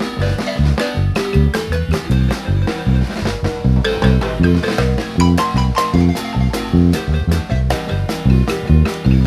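Guatemalan marimba ensemble playing a dance tune with drum kit and bass, to a steady, even beat.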